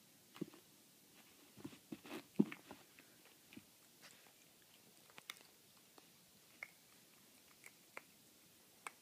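Small dog chewing dry kibble: irregular crunches and clicks of its teeth, coming thick and fast in the first three seconds, then sparser single crunches.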